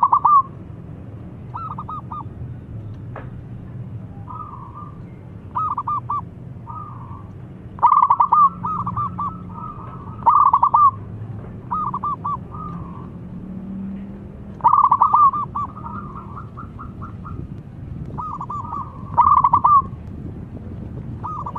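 Zebra dove (perkutut) singing: about ten phrases of quick, stuttering staccato cooing notes, every second or two, some phrases louder than others.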